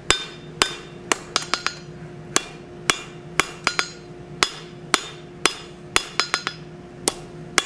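Blacksmith's hand hammer striking a red-hot steel bar on an anvil while drawing it out between two shoulders: ringing blows about two a second, with quick runs of lighter taps in between. A steady low hum runs underneath.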